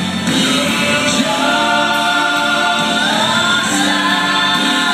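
Southern gospel male vocal group singing live in close harmony with a backing band of electric guitar and bass, holding long chords that step up in pitch about three seconds in.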